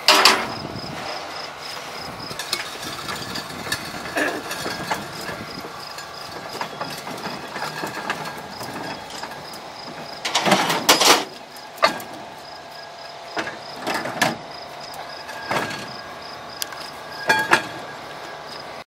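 Metal clanks and knocks from a railroad motorcar's wheels and frame as it is rolled down an aluminium trailer ramp onto the rails and pushed by hand. There is a sharp knock at the start, a cluster of loud bangs about ten seconds in, and scattered single knocks after.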